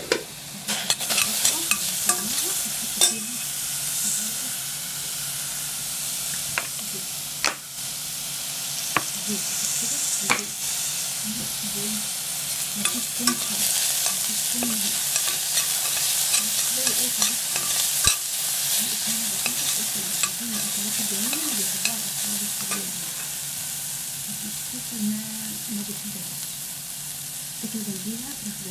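Chopped onion sizzling as it fries in oil in a stainless steel pot, stirred with a spoon that scrapes and clicks against the pot again and again.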